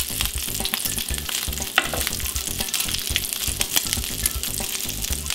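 Bacon sizzling in a ridged grill pan with scattered crackling pops, while a slotted spatula scrapes and turns the strips.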